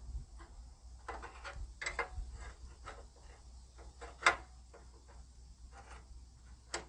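Scattered metal clicks and taps of a crescent wrench working a stubborn radiator-support bolt, with one sharper clank about four seconds in, over a low steady rumble.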